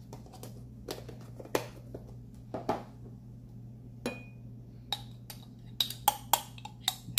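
Metal spoon clinking and scraping against a small glass bowl while mashing softened butter: a dozen or so sharp clinks, several in quick succession near the end. A steady low hum runs underneath.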